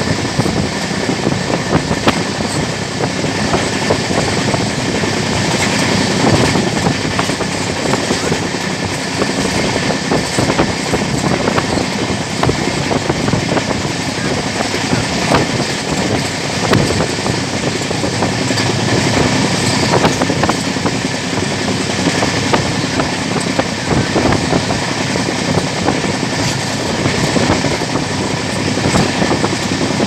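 A passenger train running at speed, heard from an open coach doorway: a steady rumble and rush of wheels on rail and wind, with scattered irregular clicks from the track.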